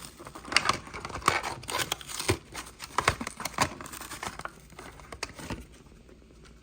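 Hot Wheels blister pack being torn open by hand: the cardboard card ripping and the plastic blister crinkling in irregular rips and crackles that die away over the last second.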